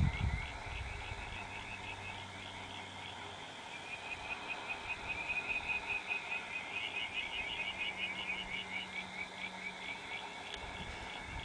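Chorus of calling animals, frogs or insects, in rapid high-pitched pulsing trills, growing louder about four seconds in. A short low thump sounds at the very start.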